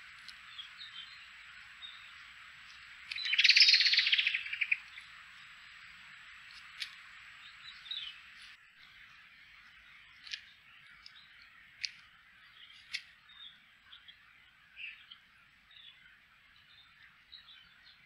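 Roe deer fawn feeding on a clump of wild mushrooms: scattered short crunches and clicks over a steady hiss. A loud rapid rattle lasting about a second and a half comes about three seconds in.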